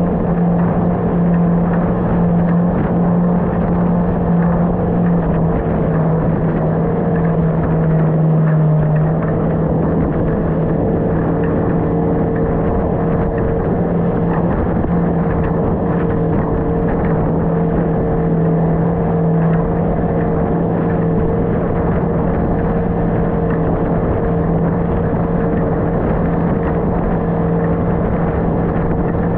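Outboard motor of a small aluminium boat running steadily under way, its steady drone shifting slightly in tone about nine seconds in.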